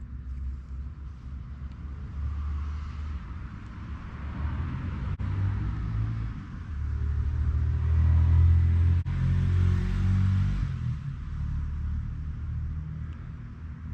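Low engine rumble of a passing motor vehicle, building to its loudest about eight to ten seconds in, then fading.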